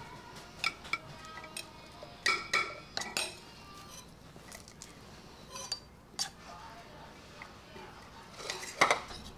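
Metal spoon clinking against ceramic plates and bowls as food is dished out: a scatter of light, irregular clinks, the loudest near the end.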